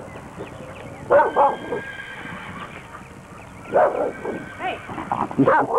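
A dog barking and yipping in two short bouts, one about a second in and another from about four seconds in.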